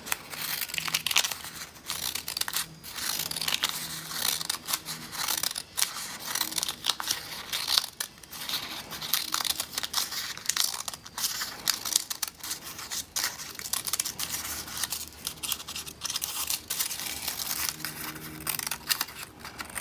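Scissors snipping a row of short fringe cuts into folded brown packaging paper, one cut after another, with the paper rustling in the hand between cuts.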